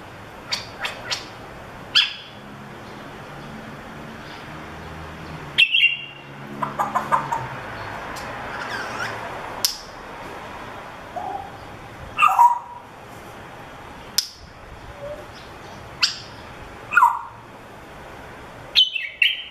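African grey parrot making a scattered series of short clicks, chirps and brief gliding whistles, with pauses of a second or two between them.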